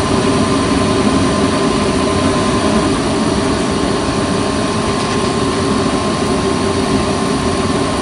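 Newly replaced draft inducer motor of an ICP gas furnace running nice and strong with the gas burners lit: a steady rushing noise with a steady hum held at one pitch.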